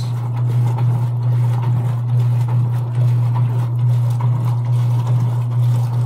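Old Kenmore top-load washing machine running, its motor giving a steady low hum.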